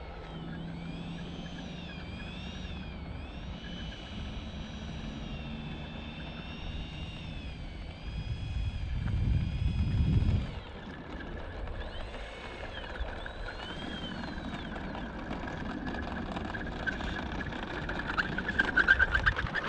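Whine of the Freewing A-4 Skyhawk's 80mm electric ducted fan on landing approach, its pitch rising and falling as the throttle is worked. A loud low rumble swells in the middle. Near the end a rough, crackly noise comes as the model is down and rolling on the asphalt.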